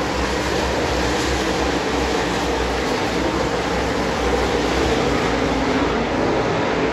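A pack of dirt late model race cars running hard around a dirt oval, their V8 engines blending into one loud, steady, continuous drone.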